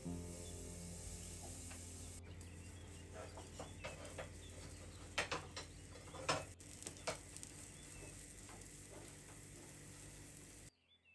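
Food sizzling in a frying pan, with a cluster of sharp clicks of a utensil against the pan about halfway through.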